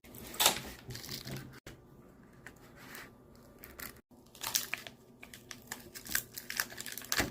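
Plastic and cardboard tool packaging being handled and torn open, with irregular crinkling and rustling that gets busier in the second half.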